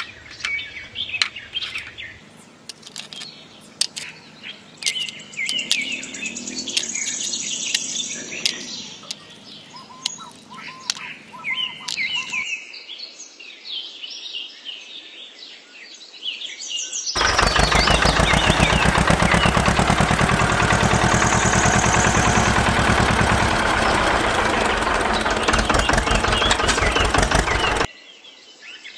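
Birds chirping, with light clicks and clacks as miniature clay bricks are handled. About seventeen seconds in, a much louder tractor engine starts running with a fast, even chug and cuts off suddenly about a second before the end.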